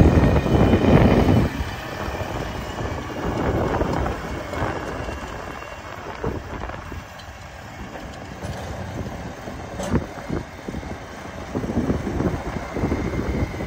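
Case IH Farmall 60A tractor with a front loader driving past, its engine running loud for the first second or so, then fainter as it moves off across the yard and rising again near the end, with a few scattered clicks and rattles.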